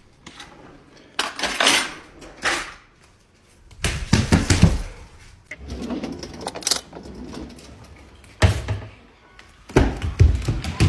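A kitchen drawer being pulled open and metal cutlery rattling inside it, in several short bursts. Thuds near the end.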